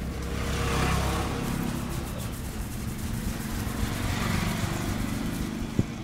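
Road traffic: two vehicles pass, swelling up and fading about a second in and again about four seconds in, over a low engine rumble. A single sharp click comes near the end.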